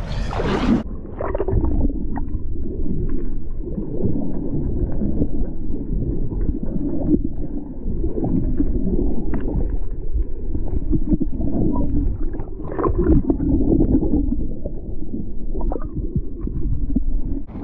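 Muffled underwater rumble and gurgling heard through a submerged action camera, with many small clicks and bubble pops. About a second in, the brighter sound of air and splashing cuts off as the camera goes under.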